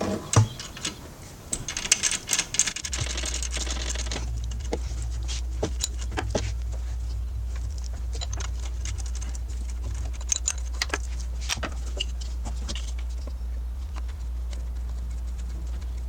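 Ratchet wrench clicking in quick runs as the alternator's last mounting bolt is backed out, with scattered metallic clicks of tool on metal. A steady low rumble sets in about three seconds in and lasts to the end.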